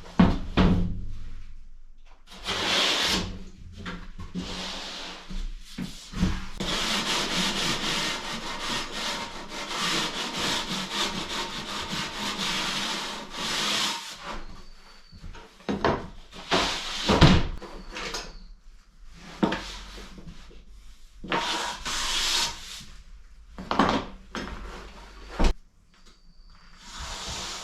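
Hand tool rubbing on wood or board, like sawing or rasping: a few short bursts, then a long run of quick strokes lasting about eight seconds, followed by several sharp knocks and more short bursts.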